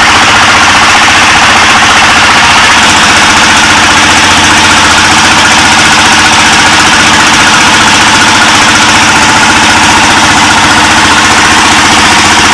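Single-cylinder ZS1115 diesel engine, its bore enlarged and valves reset for more power, running steadily under load as it drives the boat. The loud, fast, even knock of the single cylinder firing holds without a break.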